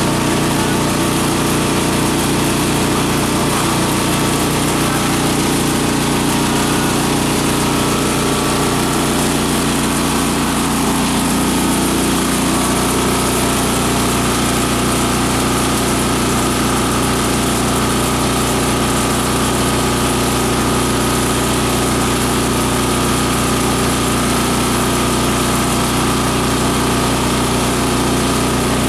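Multi-purpose chopper-shredder-grinder running steadily, its motor and spinning blades giving a loud, continuous machine drone.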